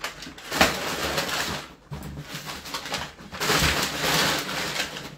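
Rustling and scraping of a cardboard box and its packing material as items are taken out of a parcel, in two spells: one about half a second in and a louder one near the end.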